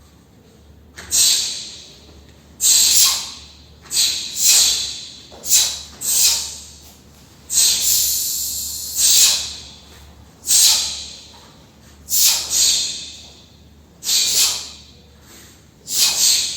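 A taekwondo practitioner performing a form, with a short, sharp hissing exhalation on each technique. There are about fifteen of these at an uneven pace, some in quick pairs.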